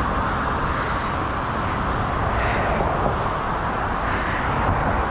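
Steady road traffic: cars driving past on the adjacent road, a continuous hiss of tyres on asphalt over a low rumble.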